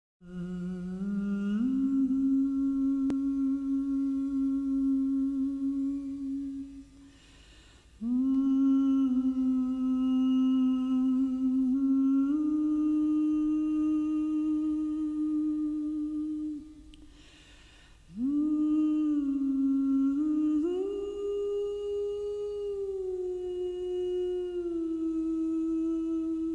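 A solo voice humming a slow wordless melody: long held notes joined by upward slides, in three phrases with a breath between each. The last phrase climbs to its highest note and then steps back down.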